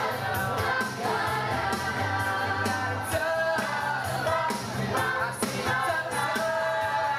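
Youth glee choir singing, amplified through the stage sound system, with a steady bass line underneath.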